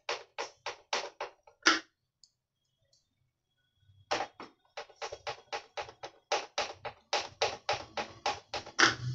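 A screwdriver driving screws into an Imusa air fryer's plastic housing: a run of regular sharp clicks, about three or four a second. The clicks stop for about two seconds after the first second or so, then resume.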